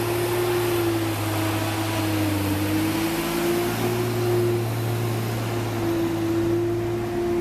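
An engine running steadily, its low hum wavering slightly in pitch.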